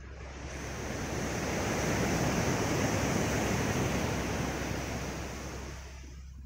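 Ocean surf: a wave breaking and washing up the beach, a rushing hiss that swells to its loudest in the middle and fades away near the end.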